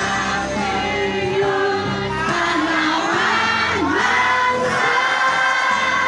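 Many voices singing a song together in chorus, with no breaks.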